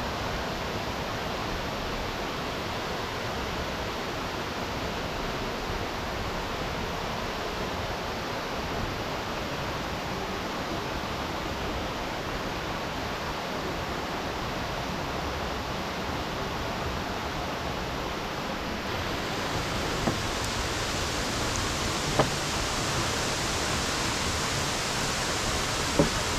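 Steady rushing of Greeter Falls, a waterfall pouring into its pool. About two-thirds of the way through it turns brighter and a little louder, and a few sharp taps sound near the end.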